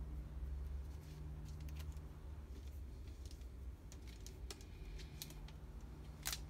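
Scattered light clicks and taps, with one sharper click about six seconds in, over a steady low hum.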